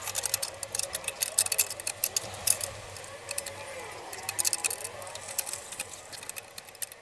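Hand ratchet wrench clicking in quick irregular runs, with small metal clinks from the exhaust header pipe and its flange nuts being tightened onto a motorcycle engine's exhaust port.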